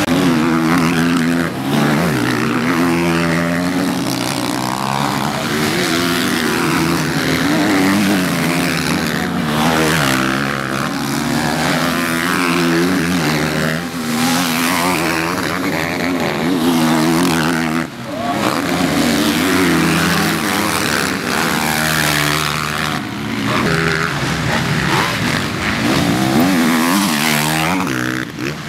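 Motocross bike engines revving hard, their pitch climbing and dropping again and again as the throttle is worked, with several bikes overlapping.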